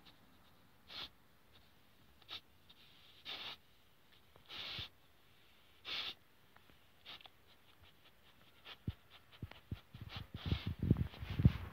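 Alaskan malamute puppy sniffing and snuffling with its nose in the dirt: short, sharp sniffs about once a second. Near the end there is a louder run of low rustling and knocks close to the microphone.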